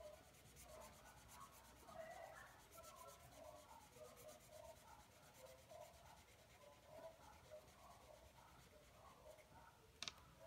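Faint scratching of a felt-tip marker stroked back and forth on paper while colouring in. A short sharp click comes near the end.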